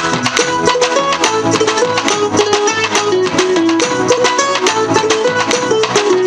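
Instrumental interlude of a Telugu Christian devotional song: a melody line over a steady percussion beat, with no singing.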